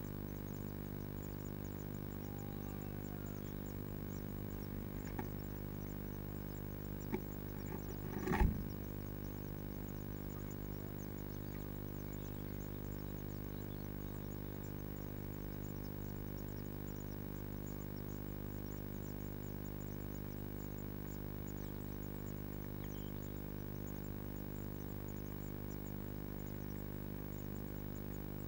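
Steady electrical hum from a nest box camera's audio. A few faint knocks come through it, and about eight seconds in there is one brief louder scrape and thump as the adult blue tit moves in the nest box.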